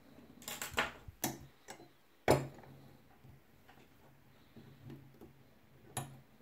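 Sharp metallic clicks and clacks from a just-picked ABUS CISA euro profile lock cylinder being handled and turned in the fingers: a quick cluster of clicks about half a second in, two single clicks after, the loudest clack about two seconds in, then faint ticks and one last click near the end.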